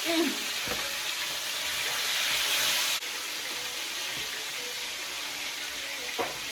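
Seasoned fish frying in hot oil in a pan: a steady sizzling hiss that swells for a second or so and drops abruptly about three seconds in. A small knock comes near the end.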